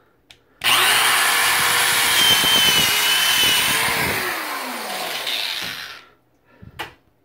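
Electric drill with a quarter-inch bit boring a hole into drywall. The motor starts about half a second in and runs at speed for about five seconds, its pitch falling as it slows before it stops.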